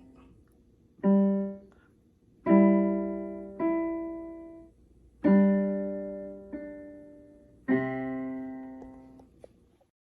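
Piano played slowly: about six notes or chords, each struck and left to ring and fade, the last dying away near the end.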